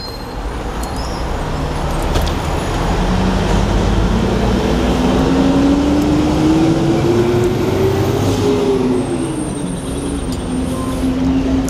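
Street traffic with a bus engine pulling away close by, its note rising steadily for several seconds, then dropping back and holding steady near the end.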